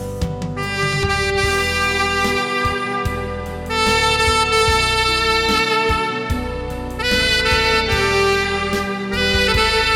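Tenor saxophone playing a slow song melody in long held notes, with a louder new phrase coming in about four seconds in and again about seven seconds in, over a recorded accompaniment with a steady bass line.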